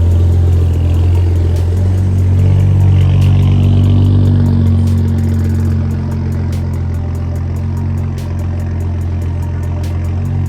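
BMW 335i's turbocharged inline-six engine idling steadily, with a strong low hum.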